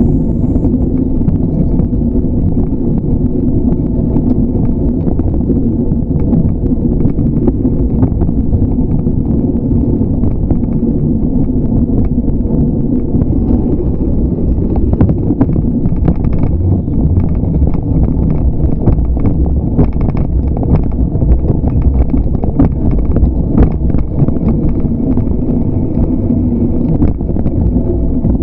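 Wind buffeting the microphone and road rumble from a moving bicycle, a steady low roar with frequent small clicks and rattles, more of them in the second half.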